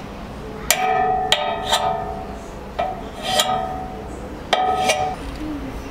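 About seven sharp, struck notes that each ring briefly, coming in groups of three, two and two, like a pitched percussion instrument in the film's music.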